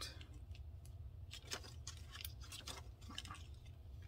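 Thin plastic stencil sheet being handled, its plastic crinkling and rustling faintly in several short spells through the middle, over a steady low hum.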